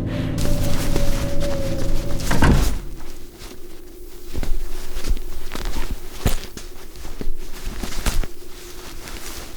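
Music with held tones ends in a heavy thud about two and a half seconds in. Irregular foley footsteps and knocks follow over a steady low hum.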